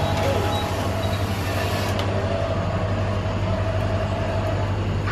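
Self-serve drink dispenser running with a steady mechanical hum and whir, with a couple of sharp clicks; the hum cuts off suddenly near the end.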